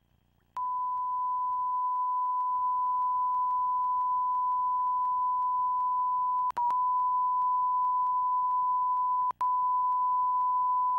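Broadcast test tone: one steady, high, pure beep played under a 'technical difficulties, please stand by' card, signalling that the programme is off the air. It starts about half a second in and cuts out twice for an instant, around six and a half and nine seconds in.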